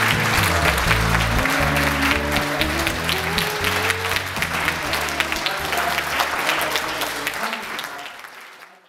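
Music with a steady bass line and a crowd applauding over it, fading out near the end.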